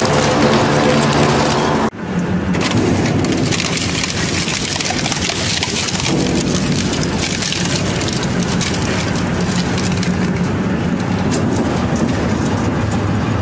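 Twin-shaft shredder with a steady motor hum, grinding a bicycle wheel's metal rim. After an abrupt change about two seconds in, a twin-shaft shredder shreds green bamboo stalks: a dense, steady run of snapping and cracking as the cutter discs split the stalks into chips.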